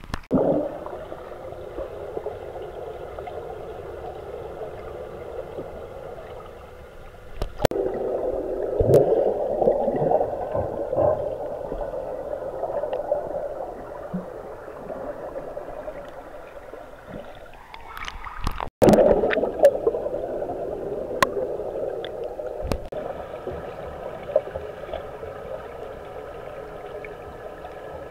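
Swimming pool heard from under the water: a steady, muffled rush of water with a low hum and a few sharp clicks, swelling louder about a quarter of the way in and again past the middle as the swimmer moves and bubbles rise.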